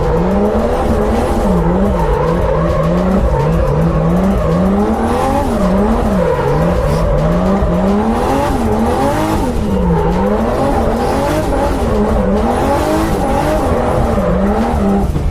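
Lada Zhiguli drift car's engine revving up and down over and over as it is driven hard through drift corners, with tyres squealing at times.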